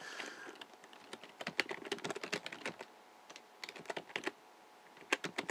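Typing on a computer keyboard: a quick, irregular run of keystrokes lasting about four seconds, then a few more clicks near the end.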